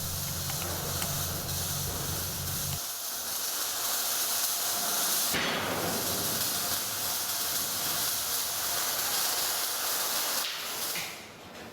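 MIG welding arc on steel, a steady hiss that stops shortly before the end. A low hum underneath cuts off about three seconds in.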